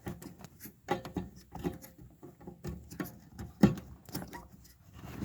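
Scattered small plastic clicks and scrapes as a replacement H11 headlight bulb is worked and turned into its socket in the headlight housing, with one sharper click about three and a half seconds in.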